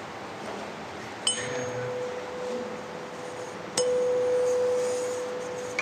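A 512 Hz tuning fork, the note C, is struck twice about two and a half seconds apart. Each strike rings on in a steady pure tone, and the second is louder and fades slowly.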